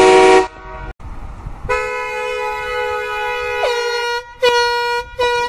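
Air horn blasts. One loud blast cuts off early on. A second long, steady blast starts just under two seconds in and dips in pitch at its end. Two short toots follow.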